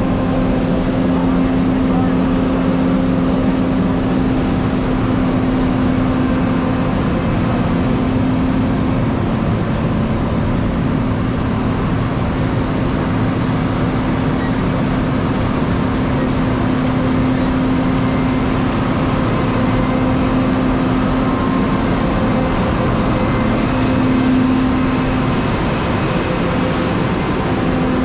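Steady machine hum: one unchanging low tone over an even rush of noise, with no sudden sounds.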